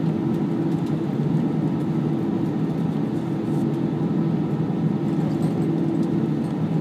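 Jet airliner cabin noise while taxiing, heard from a window seat over the wing: a steady engine drone with a low hum.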